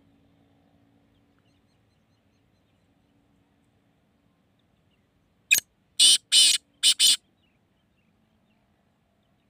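Black francolin giving its harsh, grating call once, about halfway through: a short sharp note and then a quick run of four more, all within under two seconds.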